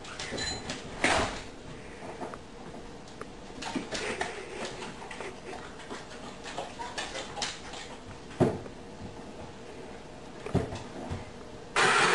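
Scattered light knocks and clicks of a dog moving about at a kitchen counter. Near the end, a sudden loud clatter starts and keeps going: empty soda cans in a plastic bowl crashing down off the counter as the dog pulls the bagel tied to it.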